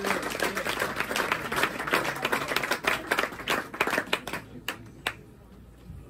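Audience applause: dense clapping that thins out about four seconds in, leaving a few last scattered claps before it dies away.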